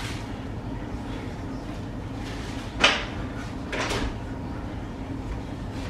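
A single sharp clunk about three seconds in, like something being shut or knocked in a kitchen, and a second, shorter noise about a second later, over a steady low hum.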